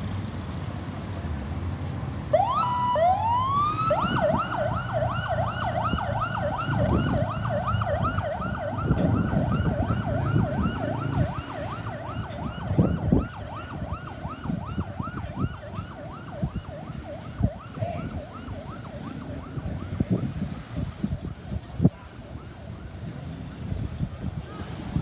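Ambulance's electronic siren starting about two seconds in with a rising wail, then switching to a fast yelp of repeated upward sweeps that fades away over the next quarter minute. Road traffic rumbles underneath.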